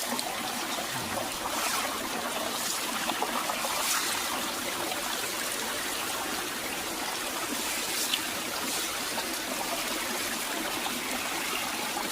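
Steady rush of flowing water, with a few light clicks about four and eight seconds in.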